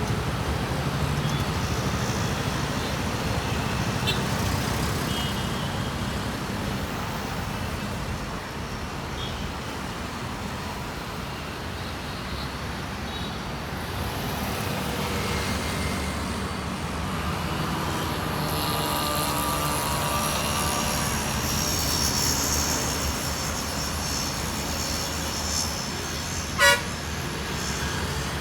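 Boeing 747 jet engines running as the airliner taxis: a steady rumble with a high whine that swells for several seconds past the middle. Near the end a short, sharp horn toot is the loudest thing.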